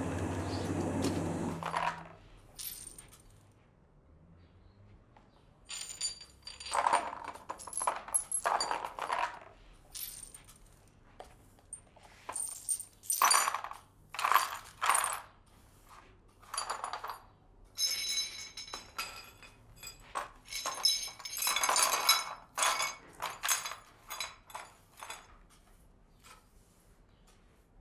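A broom sweeping broken glass into a plastic dustpan: shards clink, tinkle and scrape in irregular strokes.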